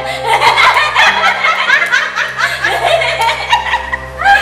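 A woman laughing loudly in quick, rising-and-falling peals that run on almost without a break, over a low steady hum.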